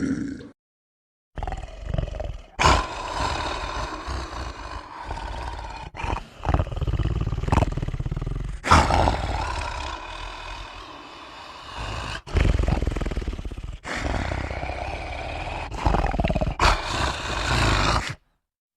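Monster sound effect: a series of rough, growling roars, each starting with a sudden loud burst and trailing off, running for about seventeen seconds before cutting off.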